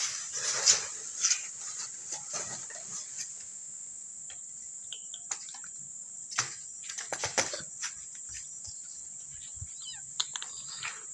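Insects chirring in a steady high-pitched drone, with scattered short rustles and knocks close by.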